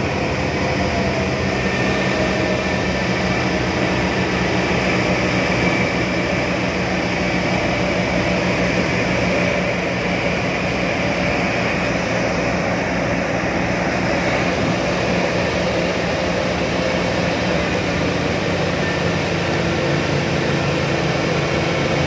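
Three Suzuki outboard motors running together with the boat under way at speed: a steady, unbroken engine drone mixed with the rush of churned water from the wake.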